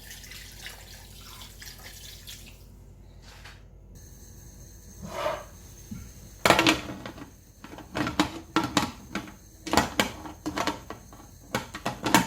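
Hot water pouring into a pressure cooker with cow foot, then metal clanks and clicks as the pot's lid is handled and closed.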